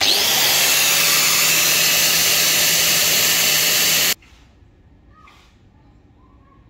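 Electric angle grinder at full speed cutting into a brazed copper pipe joint, a loud steady whine that stops abruptly about four seconds in.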